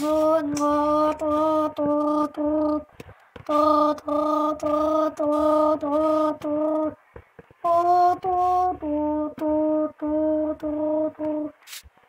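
A person's voice chanting one syllable over and over on a nearly steady pitch, about two notes a second, in three runs with short pauses between them, mimicking a washing machine agitating.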